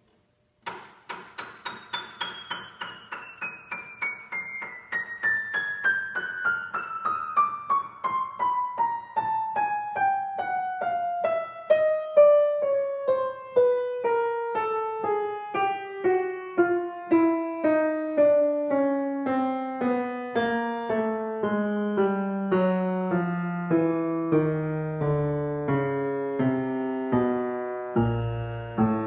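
A c.1982 Steinway Model L grand piano played one note at a time down the keyboard. The run starts at the top treble about a second in and descends steadily in pitch into the bass, each note ringing on.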